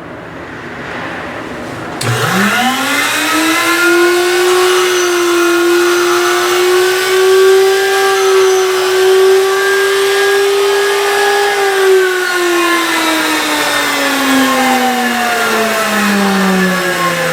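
Skate-sharpening machine's grinding-wheel motor switched on about two seconds in, its whine rising quickly to a steady pitch. About two-thirds of the way through, the pitch starts to fall slowly while the machine keeps running.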